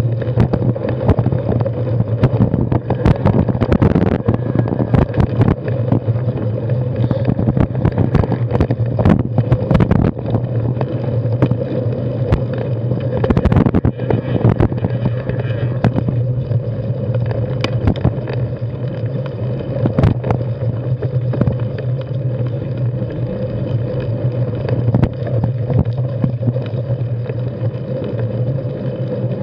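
Carbon 6Fattie mountain bike riding over a rocky dirt singletrack: steady rumble of tyres and wind on the camera, with frequent sharp rattles and knocks as the bike jolts over rocks.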